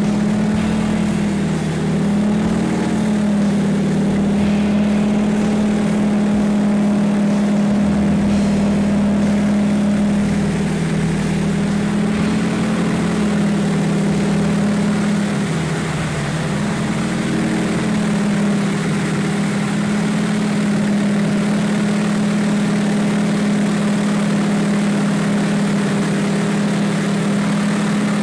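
North American T-6 Harvard's nine-cylinder Pratt & Whitney R-1340 radial engine and propeller, heard from inside the cockpit in flight: a loud, steady drone that dips briefly in pitch about two seconds in and again a little past halfway.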